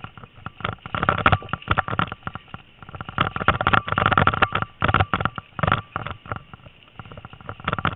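Bike rattling and jolting over a bumpy dirt trail while being towed by a dog team, a dense run of irregular knocks and clatter that eases off near the end.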